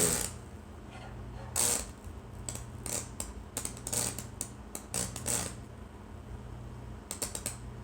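Lichtenberg wood-burning machine's high-voltage transformer humming steadily, with irregular crackling snaps as the current arcs across the wet board. The burn is struggling to spread.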